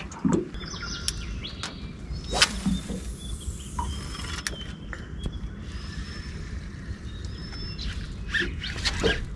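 Birds calling: short, thin whistled notes scattered through, over a steady low rumble, with a few sharp clicks.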